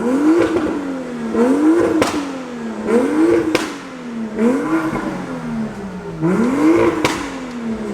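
Car engine revved five times in a row, each rev climbing quickly and then dropping away slowly, with sharp pops at the top of several revs.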